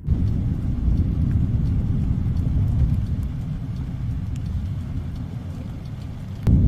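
Thunder rumbling low and slowly fading, then a sudden sharp crack of thunder near the end that sets off a loud rolling rumble.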